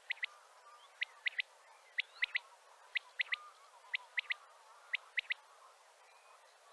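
Male common quail singing its three-note 'wet-my-lips' song: six quick triplets of sharp, liquid notes, about one phrase a second.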